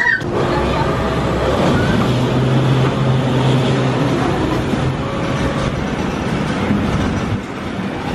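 Pax family roller coaster train running on its steel track: a steady mechanical rumble and clatter, with a low hum holding for a couple of seconds early on.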